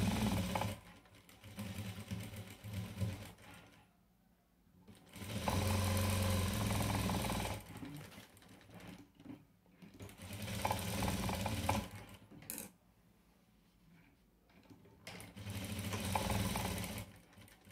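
Sewing machine stitching up the side seams of a small lined purse made of upholstery fabric. It runs in four short bursts of one to two seconds with pauses between them. There is one sharp click during a pause.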